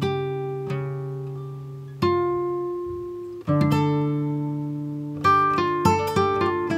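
Background music of plucked-string chords, each struck and left to ring and fade, with quicker picked notes from about five seconds in.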